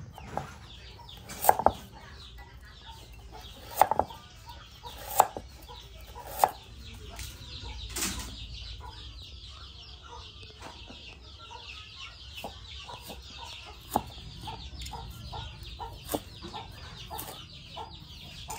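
Chickens clucking: several loud, sharp clucks in the first half, then softer clucking repeated every second or so, over a steady high-pitched background.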